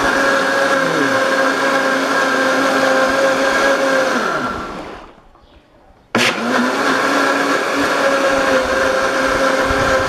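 Philco 1400-watt blender motor running at full speed with an empty jar, a steady whine. It winds down and stops about four to five seconds in, then is switched on again about six seconds in and runs at speed once more. This is a test run after repairing the blade nut whose thread had stripped, which had let the motor spin without turning the blades.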